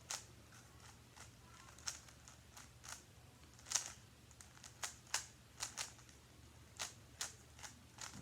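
A GAN 356 RS 3x3 speed cube being scrambled by hand: its layers turning with faint, sharp plastic clicks at uneven intervals, a dozen or so in all.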